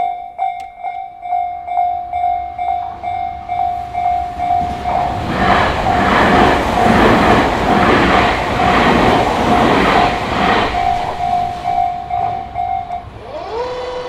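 Japanese level-crossing warning bell ringing a steady repeated ding, about two a second, as a Tobu Noda Line electric train passes, its wheels clattering over the rail joints for about five seconds in the middle. The bell stops shortly before the end as the train clears and the barriers lift.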